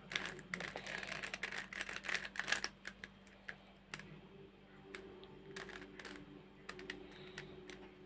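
Plastic 3x3 Rubik's cube being turned by hand: the layers clack as they rotate, in a quick run of clicks for the first two and a half seconds, then sparser single turns.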